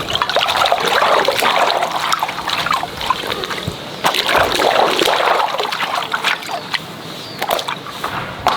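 Water sloshing and splashing, swelling and easing off in waves, with scattered small clicks and knocks through it.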